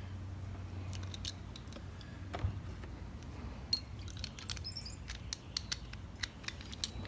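Light metallic clicks and clinks of hand tools as a 1/4-inch drive ratchet and extension are handled and fitted, scattered and coming more often in the second half, over a steady low hum.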